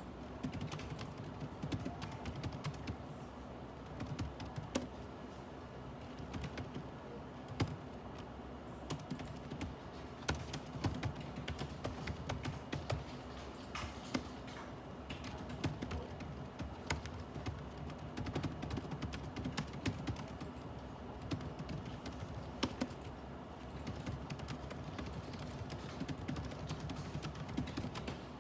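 Typing on a computer keyboard: irregular runs of keystrokes with an occasional louder key press, over a faint steady hum.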